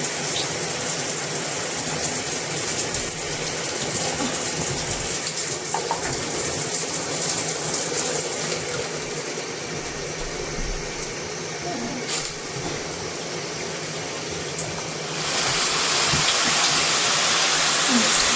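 Water spraying from a HOPOPRO multi-mode shower head, a steady hiss that turns louder and brighter about fifteen seconds in. A single click about twelve seconds in.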